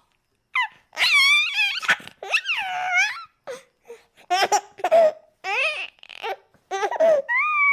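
A baby's high-pitched squeals, giggles and babbling in a string of short bursts with brief gaps between them, the pitch wavering up and down.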